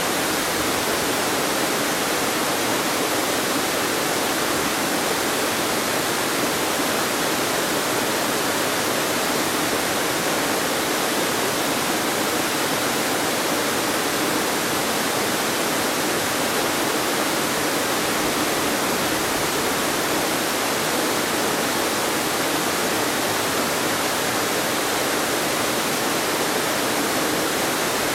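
Creek waterfall pouring over wide rock ledges: a loud, steady rush of falling water that never lets up.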